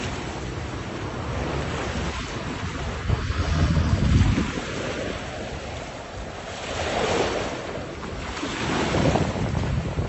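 Wind buffeting the microphone over the wash of waves, the rumble swelling in gusts or surges of water a few times.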